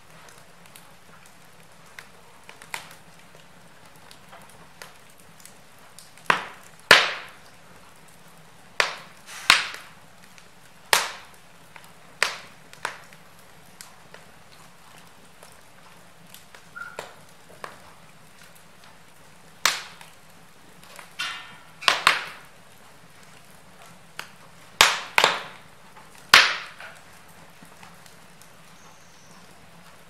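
Wood logs burning in an open fireplace: irregular sharp crackles and pops, some in quick pairs, over a faint steady hiss.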